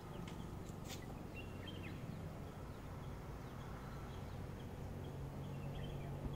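Faint open-air ambience: a few short, high bird chirps over a steady low hum, with a soft tap about a second in.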